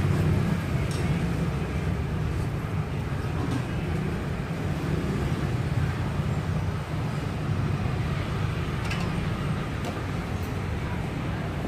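Steady low rumble of street traffic, with a few faint taps and scrapes of a metal spoon spreading egg on a crepe griddle.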